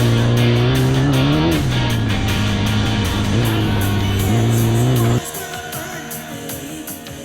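Heavy rock music with distorted guitar, mixed with a Class 11 VW Bug's engine running hard inside the cabin, its pitch rising and falling twice. About five seconds in the loud sound cuts off abruptly and a much quieter passage follows.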